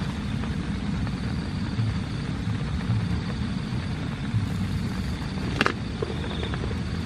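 Heavy rain drumming steadily on a tent, heard as a dense low rumble with patter over it, and one sharp tap about five and a half seconds in.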